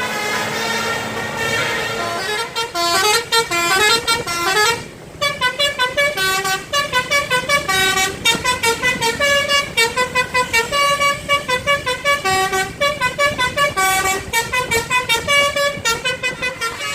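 Bus basuri telolet horn playing a fast tune of short notes that step up and down in pitch, with rising runs in the first few seconds and a brief break about five seconds in.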